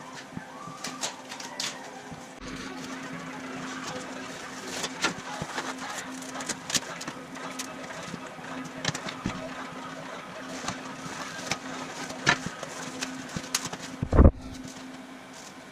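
Corrugated cardboard being handled and cut with a utility knife on a steel workbench: scattered scrapes and clicks, with one heavy thud about fourteen seconds in. A steady low hum runs underneath.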